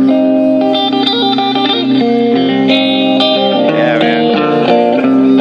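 Electric guitar played live through a small portable amplifier: a run of held notes and chords.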